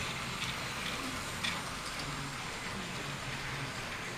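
Electric model trains running on the layout's track: a steady motor hum and wheel rumble, with a few light clicks.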